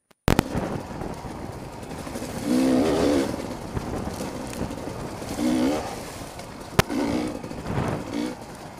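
Beta 300 RR two-stroke enduro motorcycle engine running under way, rising in several short bursts of throttle. A single sharp knock sounds just before seven seconds in.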